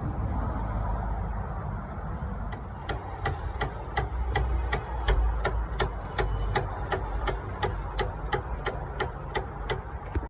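Light, evenly spaced hammer taps on a car door panel, about three a second, starting a couple of seconds in: the tap-down work of paintless dent repair. A low steady rumble runs underneath.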